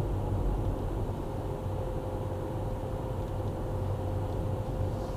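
Car driving slowly on a paved village road, heard from inside the cabin: a steady low engine and road rumble with a faint constant whine over it.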